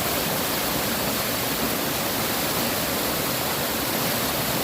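Steady rush of a jungle waterfall pouring onto rocks into a pool, heard close.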